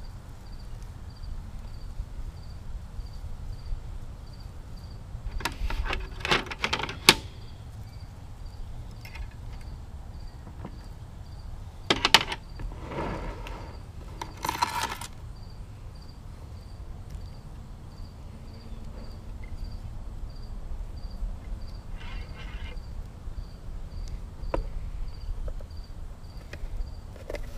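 Handling noise from wrapping copper wire around a bonsai trunk: clusters of rustling and sharp metallic clicks, the loudest about 7 and 12 seconds in, with more about 15 and 22 seconds in. A faint insect chirp repeats evenly in the background.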